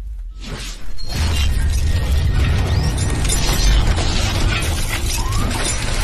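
Intro sound effects of crashing, shattering noise over heavy bass music. After a brief dip, it comes in loud about a second in.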